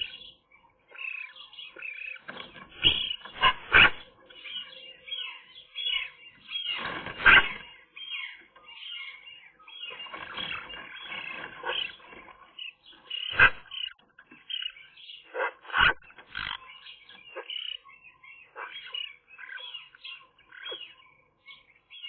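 Male magpie at the nest making a soft greeting sound: a run of short, irregular calls, with a few louder notes scattered through.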